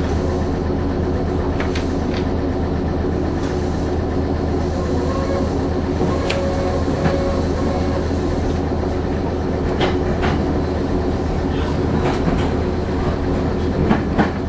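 Meitetsu electric train running along the line, heard from inside the front car. A steady running and motor hum, with sharp clicks from the wheels crossing rail joints every few seconds.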